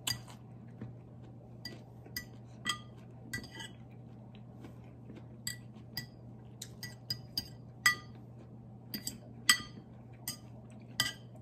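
Metal fork clinking and tapping against a ceramic plate: about a dozen and a half short ringing clinks at an uneven pace, the loudest near the middle and later on.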